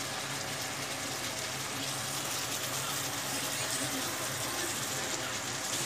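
Chicken curry sizzling and bubbling steadily in an iron kadai over a gas flame.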